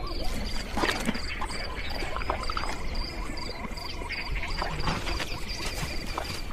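Nature ambience of chirping wildlife: short, high-pitched chirps repeating evenly about three times a second over a steady insect drone, with a few soft knocks.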